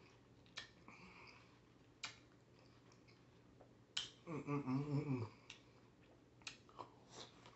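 Close-up eating sounds of watermelon being chewed from a pot: a few sharp wet clicks a second or more apart. About four seconds in comes a short hummed 'mmm'.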